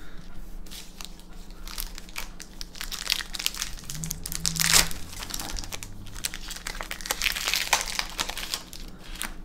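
Foil wrapper of a Magic: The Gathering booster pack crinkling as it is torn open and crumpled by hand, in uneven bursts of crackling that are loudest around the middle and again near the end.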